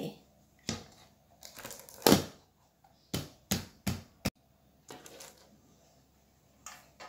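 Metal cake tray turned upside down onto butter paper and tapped on its back to release the set coconut burfi: a louder knock about two seconds in, then four quick taps a little under half a second apart, with paper rustling and a few softer knocks as the tray is lifted off.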